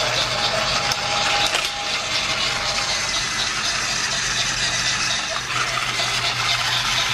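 Battery-powered TrackMaster toy engine (Spencer) running along plastic track, a steady mechanical whir of its small gear motor and wheels.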